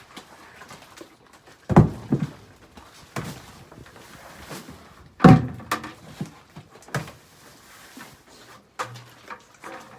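A few separate heavy thumps and knocks, the loudest about five seconds in, with lighter knocks between them.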